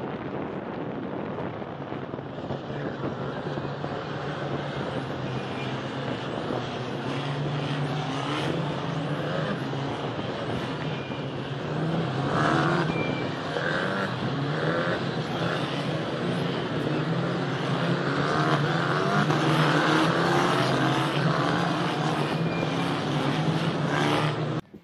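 A line of Formula 4 race cars driving past one after another, their small turbo four-cylinder engines running and revving. The sound grows louder as the cars come close, with many rising revs in the second half, and cuts off suddenly at the end.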